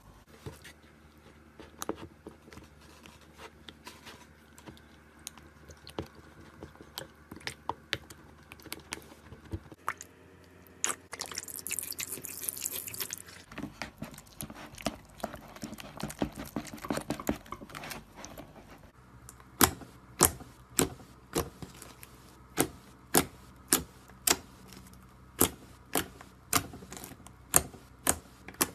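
Slime being handled: soft wet squishes and clicks, with a short stretch of hiss near the middle. In the last third, fingers press into thick blue slime, making a steady series of sharp pops about three every two seconds.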